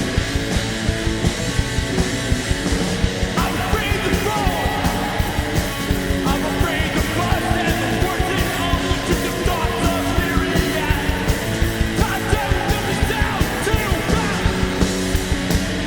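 Rock band playing live: electric guitars, bass and drums keeping a steady beat, with vocals coming in about three seconds in.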